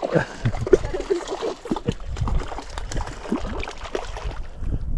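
Water splashing, dripping and gurgling as a small cutthroat trout is brought to the side of the boat: many quick, bubbly drips and small splashes.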